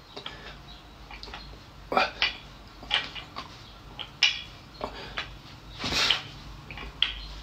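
Irregular metallic clinks and knocks from a barbell handled during curls, the loudest about six seconds in.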